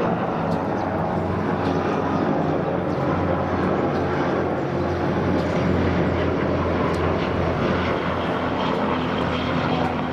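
A steady mechanical drone with a strong low hum, swelling slightly midway.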